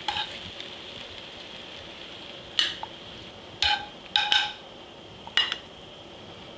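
Metal tongs clink several times against the skillet and the plate, with sharp ringing taps in the second half, as seared pork kidneys are lifted out of the pan. Hot oil sizzles faintly underneath.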